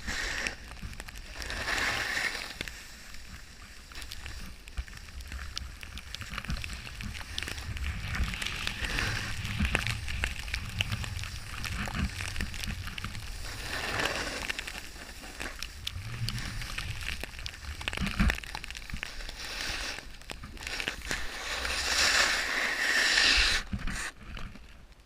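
Snowboard sliding over snow, its edge scraping in swells as the board turns, over a low wind rumble on the camera microphone. The scraping drops away near the end.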